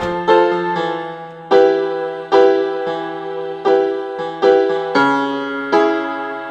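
Soundtrack music: a piano or electric piano playing slow chords, each struck note ringing and fading before the next.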